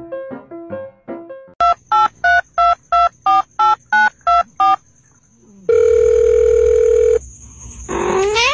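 A run of about ten short electronic beeps like phone keypad tones, about three a second on two alternating pitches, then one long steady tone. Near the end a cat gives a rising meow. A few piano notes are heard just before the beeps.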